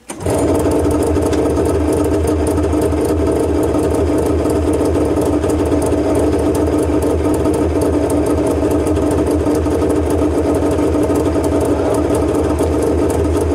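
Snowmobile engine idling steadily with no revving. The sound holds one unchanging pitch and level and cuts off suddenly at the end.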